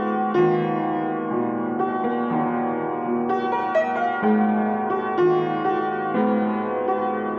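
Piano music, a slow melody with sustained chords and notes struck about once or twice a second.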